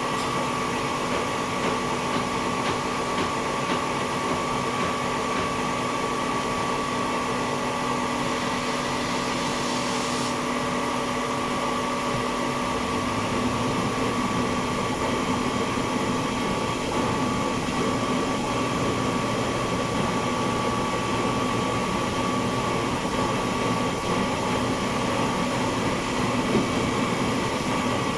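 Screw air compressor running steadily, a continuous machine noise with a held whine. About ten seconds in a high hiss stops, and shortly after a deeper hum comes in as the running note shifts.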